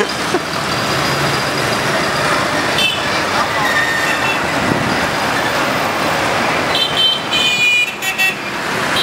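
Busy street traffic of cars and motorbikes at an intersection, with engines and tyres making a steady noise. A short horn toot comes about three seconds in, and several horns honk together near the end.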